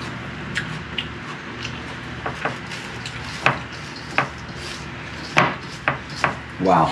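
Scattered light clicks and taps of kitchen utensils against a bowl as poke is handled and tasted, over a steady low kitchen background.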